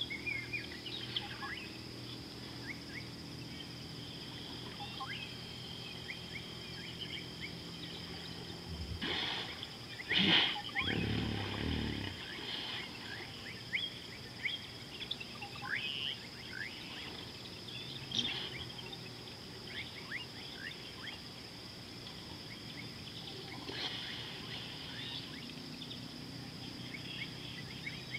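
Outdoor bush soundscape: many short bird chirps scattered over a steady, high insect hum. About nine seconds in, a louder, lower-pitched animal-like sound lasts about three seconds and is the loudest thing heard.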